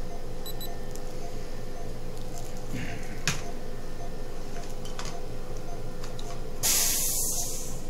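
Compressed air hissing from a dental delivery unit's air line in one loud blast of about a second near the end, over a steady low hum. Two faint short beeps sound about half a second in.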